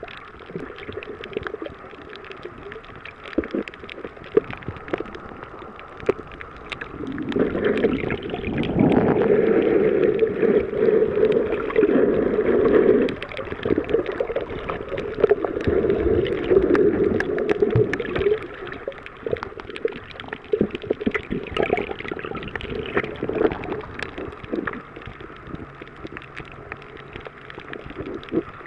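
Muffled water movement heard through a submerged camera: sloshing and gurgling surges with scattered faint clicks. It swells louder from about seven to thirteen seconds in and again around fifteen to eighteen seconds.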